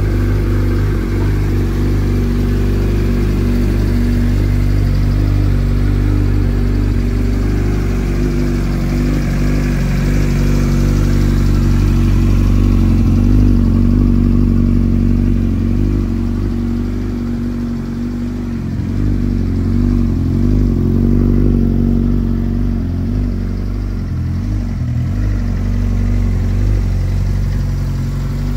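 Suzuki GSX-R1000's inline-four engine running at idle, a steady low hum throughout.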